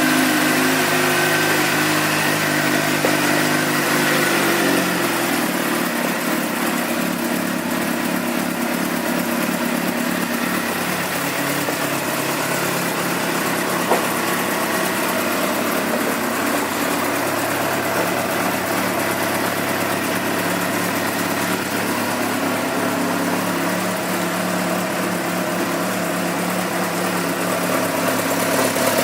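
2006 Suzuki GSX-R600's inline-four engine idling steadily, its idle speed dropping to a lower, even idle about four seconds in. It runs smoothly with no valve-train ticking. A single brief click sounds about halfway through.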